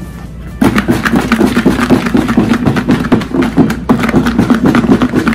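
Sauce-coated fried chicken pieces tumbling inside a lidded plastic bowl as it is shaken from side to side to mix them. It is a rapid, uneven run of thuds that starts about half a second in.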